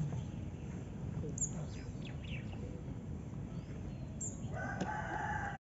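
Steady low outdoor background noise with a few quick bird chirps. Near the end a short held tone starts, and the sound then cuts off suddenly.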